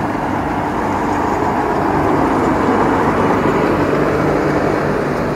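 Tracked combine harvester's diesel engine running steadily at constant speed.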